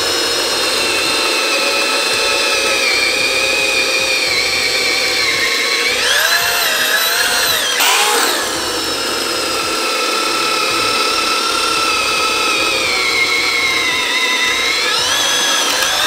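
Corded 8.5-amp half-inch drill turning a spade bit through a pressure-treated 4x4: a continuous motor whine whose pitch sags as the bit bites into the wood and rises again when the load eases, about six seconds in and near the end.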